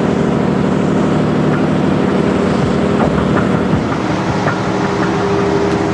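An old cargo boat's engine running steadily, a constant drone with a fast, even pulse.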